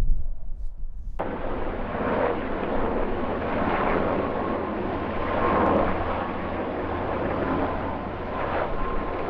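Strong gusting wind roaring across the microphone, swelling and easing every second or two with a faint whistle. It starts abruptly about a second in, after low buffeting rumble.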